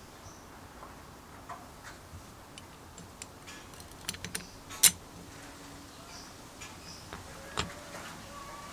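Scattered light clicks and taps at an irregular pace. There is a small cluster about four seconds in, then the loudest sharp click just after, and another click near the end.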